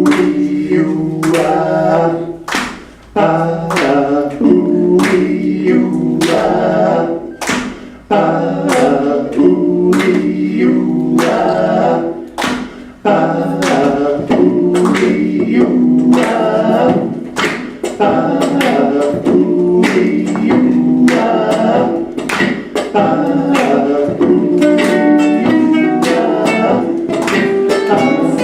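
Vocal music: several voices singing together in harmony over a sharp, steady beat of about two strokes a second.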